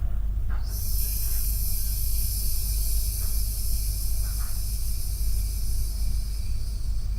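A person making a long, steady 'sss' hiss with the mouth on the out-breath, starting about a second in and held for about six seconds.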